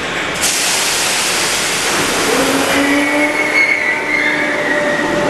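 Merseyrail Class 507 electric train at an underground platform: a sudden burst of air hiss about half a second in, then a whine rising in pitch from about two seconds in as the train starts to pull away.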